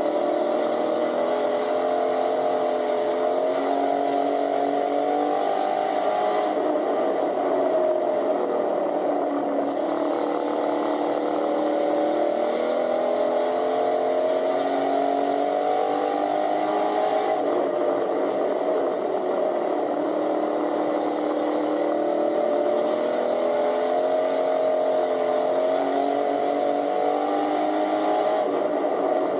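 Pure stock race car's engine heard from inside the cockpit, revving up along the straights and easing off for the turns. Its pitch climbs for several seconds and then drops back, about every eleven seconds, with drops about six, seventeen and twenty-eight seconds in.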